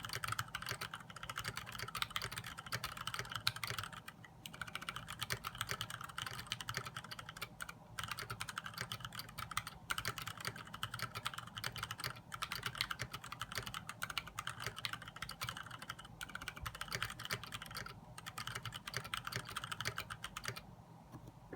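Fast, continuous typing on a KBD75 mechanical keyboard with Gateron Brown switches and DSA-profile Granite keycaps: a dense run of keystroke clacks broken by a few brief pauses. The typing stops about a second before the end.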